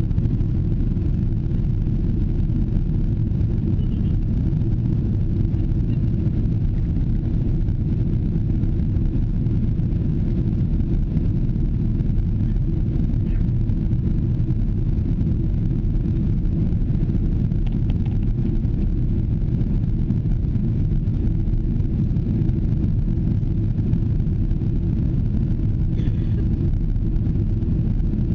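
Steady low rumble of an airliner in flight, its jet engines and rushing air heard inside the passenger cabin.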